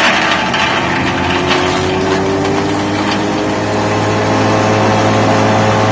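Morbark M6 wood chipper running empty, its engine and chipper drum turning steadily, the engine pitch rising slightly about halfway through.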